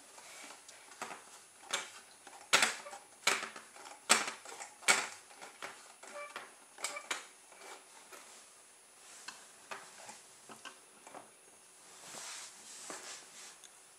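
Sharp clicks and light knocks of hard plastic and vinyl as a rubber band powered car's back wheels, two vinyl singles on a garden-cane axle, are turned by hand to wind up its rubber band. The loudest knocks come in a cluster a few seconds in, followed by lighter scattered ticks.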